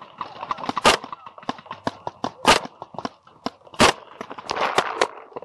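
Paintball marker firing three loud single shots at irregular intervals of about a second and a half, among many fainter pops and snaps from other markers firing across the field.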